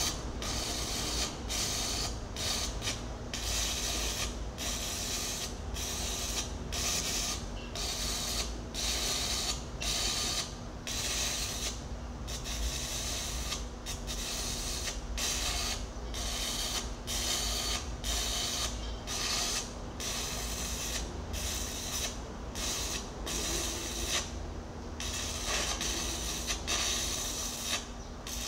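Electric arc welding on the steel teeth of an excavator bucket: a continuous crackling sizzle from the arc, broken by brief gaps about once a second as the arc is interrupted and restruck, over a steady low hum.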